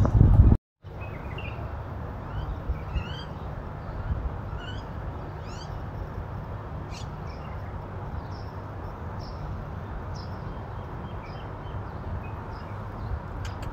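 Birds chirping in short, scattered calls over a steady low rumble. A loud burst of wind on the microphone cuts off about half a second in.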